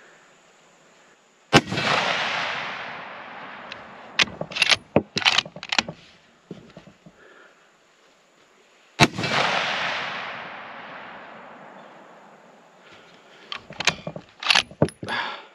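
Two rifle shots from a 6.5 Creedmoor bolt-action rifle, about seven and a half seconds apart. Each shot's echo trails off over a few seconds. Each is followed by a quick cluster of metallic clicks as the bolt is worked to eject the case and chamber the next round.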